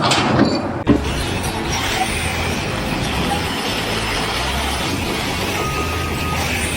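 Loud steady noise of a working site with a sharp knock about a second in; near the end a vehicle's reversing beeper starts sounding.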